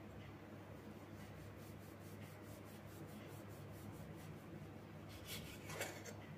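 Kitchen knife sawing through soft rolled dough on a wooden chopping board: faint, quick scraping strokes, about four a second, with a couple of louder scrapes near the end.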